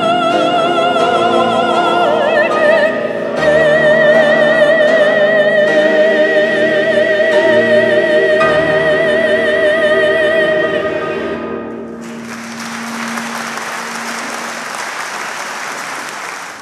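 A soprano soloist holds a long final note with vibrato over a men's choir, ending about eleven seconds in. Then the audience applauds.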